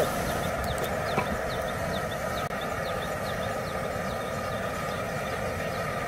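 Pot of water at a hard boil on a portable gas camp burner: a steady rushing roar with faint light popping from the bubbles.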